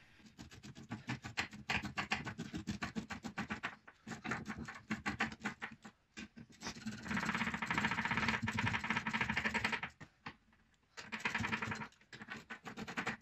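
Hand ratchet clicking in runs of rapid clicks as the strut top mount bolts are wound down, with short pauses between strokes and a quiet gap about ten seconds in.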